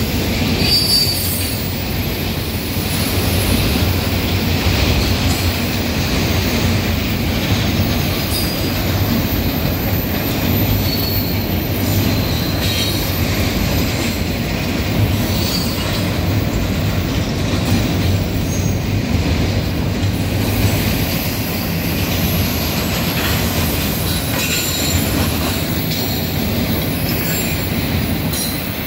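Double-stack intermodal freight train's container well cars rolling past, a steady rumble of steel wheels on rail with brief high wheel squeals several times.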